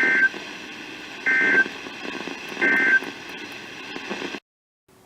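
NOAA Weather Radio EAS end-of-message code: three short digital data warbles about 1.3 seconds apart, marking the end of the broadcast alert, over steady radio receiver hiss. The hiss cuts off suddenly near the end, leaving a faint hum.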